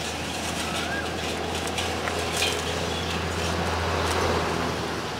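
Lumps of coal clattering as they are picked by hand and dropped into a wicker basket, a few sharp knocks among general outdoor noise. A steady low hum runs underneath and stops a little past four seconds in.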